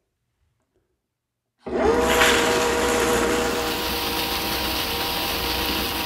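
Frankford Arsenal rotary wet tumbler switched on: its motor starts suddenly about one and a half seconds in and runs with a steady hum, turning the drum loaded with brass cases, stainless steel pins and soapy water. The machine is a little on the noisy side.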